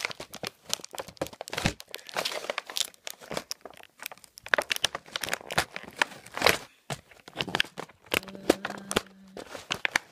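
Plastic and cardboard toy packaging being handled and pulled apart while an action figure is freed from its box: crinkling, crackling and tearing in quick, irregular bursts.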